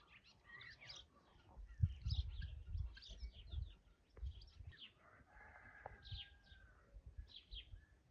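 Faint small-bird chirps, short and scattered throughout, with one longer drawn-out call about five seconds in. Low thumps and rumble around two to three seconds in.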